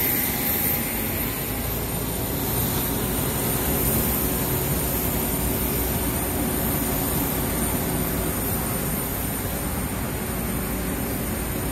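Steady aircraft noise inside the cabin of an Airbus A318 on the ground: a high, even jet-type whine over a constant rush of air, with no change in level.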